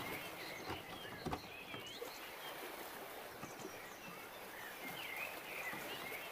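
Faint outdoor ambience: a steady hiss with scattered short chirps.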